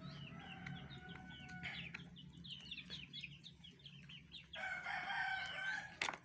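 Chickens: a rooster crows, first a held call lasting about a second and a half, then a louder crow about four and a half seconds in. Both run over a steady run of short, falling peeps and clucks.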